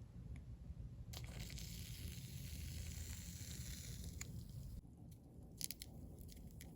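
Slime being squished and worked by hand. About a second in, a crackly, sizzling hiss starts and lasts a few seconds, then stops suddenly, followed by a few sharp little pops and clicks.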